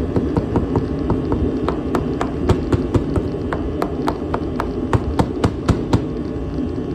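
Steady rushing noise of the heat source used to melt the plastic, with a run of sharp, irregular taps or clicks, about three or four a second, that grow louder through the middle and stop about a second before the end.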